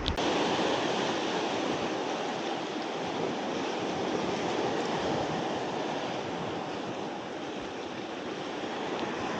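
Sea surf washing against a rocky shore: a steady rush of waves that swells and eases gently.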